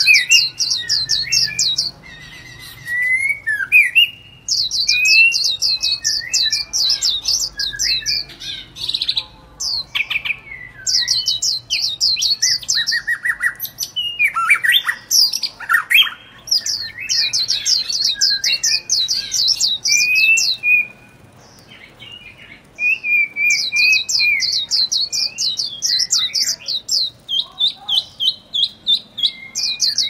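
Small songbirds calling: repeated bouts of rapid, high chips, about eight a second and each bout lasting about two seconds, mixed with lower warbled whistles.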